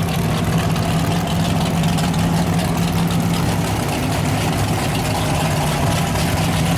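Mud truck engine running steadily at a low, even idle, with no revving.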